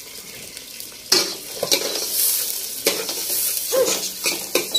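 Thinly sliced onions sizzling in hot oil in a stainless-steel pot, stirred with a spoon that scrapes and clicks against the pot. The sizzling and stirring start suddenly about a second in.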